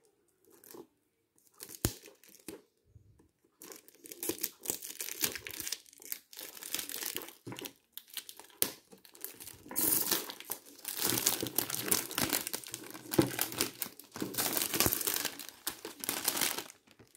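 Thin clear plastic bag being cut open with scissors and peeled and pulled off a cardboard box, crinkling and tearing. A few faint snips and rustles at first, then steady loud crinkling from about ten seconds in.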